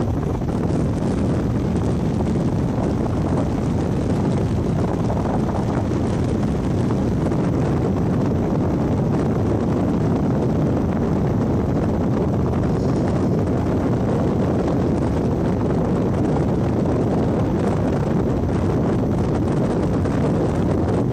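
Steady wind buffeting the microphone, a constant low rumble.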